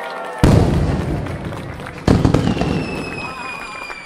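Handheld confetti cannons going off: a sudden loud pop about half a second in and another about two seconds in, each followed by a rushing crackle that fades as the confetti flies.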